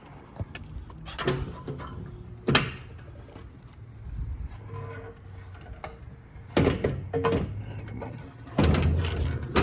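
Metal clunks and rattles from gear on the back of a service truck being handled. There is a sharp knock about two and a half seconds in, and bursts of clatter past the middle and near the end.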